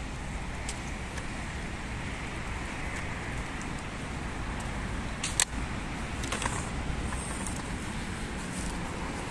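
Steady hum of road traffic from a nearby city street, with a single sharp click about five and a half seconds in.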